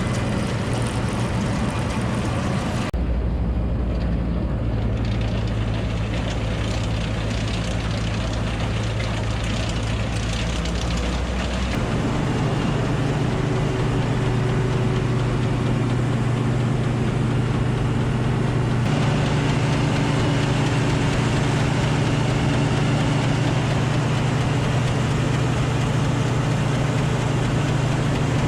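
John Deere 955 combine harvester running with its threshing and separating mechanisms engaged: a steady diesel engine and machinery hum. The tone of the hum changes abruptly three times.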